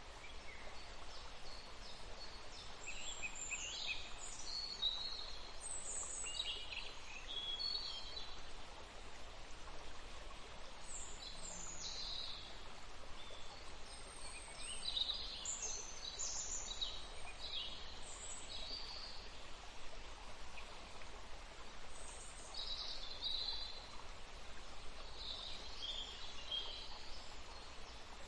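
Small birds chirping in short, scattered calls, in clusters with pauses, over a steady low background noise.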